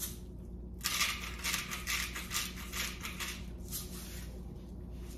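Salt being added to the dish, a quick run of rattling, gritty strokes that starts about a second in and lasts about three seconds. A steady low hum runs underneath.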